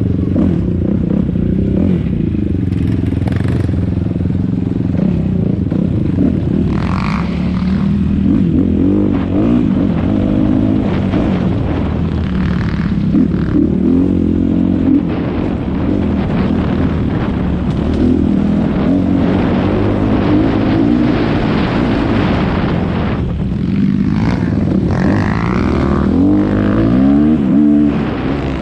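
Kawasaki KX250F dirt bike's four-stroke single-cylinder engine being ridden hard, revs rising and falling continually with the throttle.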